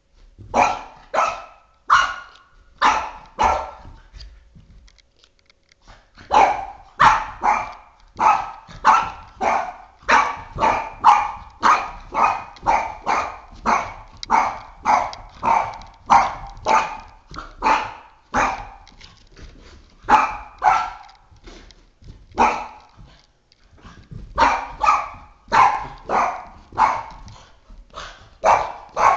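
Boston terrier barking excitedly at a flashlight spot, short sharp barks about two a second. The barking comes in runs, with a break of about two seconds around four seconds in and a shorter one near twenty-two seconds.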